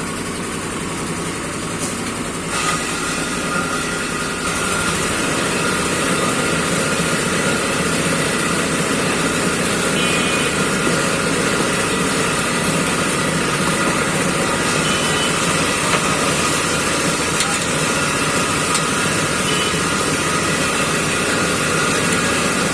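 Steady engine noise with a continuous high hum that grows slightly louder about four seconds in.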